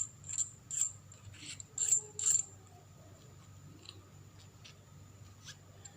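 Plastic battery housing of a Boya BY-M1 lavalier microphone being twisted open by hand. A run of small clicks and scrapes lasts about two and a half seconds, then only faint handling ticks follow.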